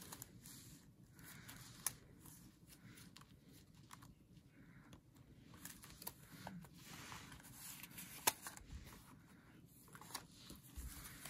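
Pages of a handmade paper-and-card junk journal being turned and handled: faint rustling of paper and card, with a sharp click about two seconds in and a louder one about eight seconds in.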